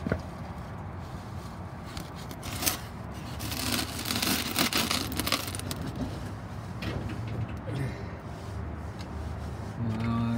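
Handling noise: a few sharp clicks and knocks, with a scraping rustle about four seconds in, over a steady low hum.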